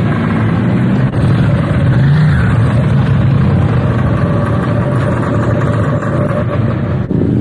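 Motorcycle engines running at low speed as bikes roll slowly through a car park, with a steady low engine note and a brief rise in revs about two seconds in.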